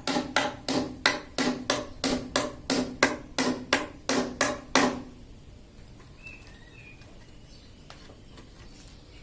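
A hammer striking in a steady rhythm, about three blows a second, each with a brief ringing note; the blows stop about five seconds in. Afterwards a bird chirps faintly a few times.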